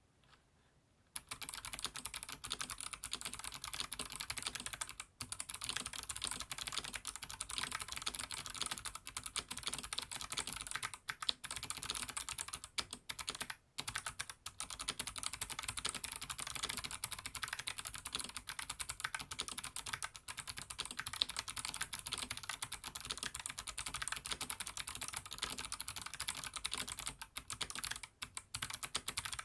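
Fast, continuous typing on an mStone Groove T87A tenkeyless mechanical keyboard with Kailh Box Jade thick-click switches on an aluminium plate: a dense stream of sharp clicks that starts about a second in and breaks off briefly a few times.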